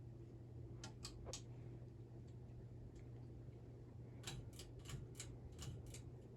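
Harbor Breeze ceiling fan running with a steady low hum, with light clicks: three about a second in, then a run of about three clicks a second near the end.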